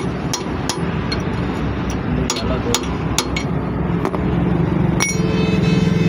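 Sharp metallic strikes on a steel drift set against the slotted lock nut of a truck wheel hub, knocking the nut round; about two blows a second, unevenly spaced. A louder strike comes about five seconds in, and a steady machine hum starts just after it.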